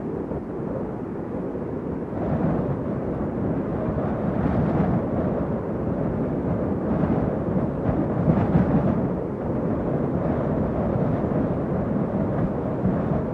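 Strong wind blowing: a deep, continuous rushing noise that swells in gusts every few seconds.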